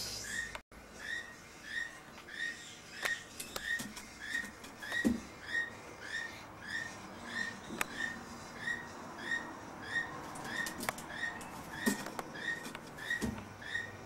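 Collared aracari, a small toucan, calling: a short, high note repeated evenly about twice a second, with a few soft knocks in between.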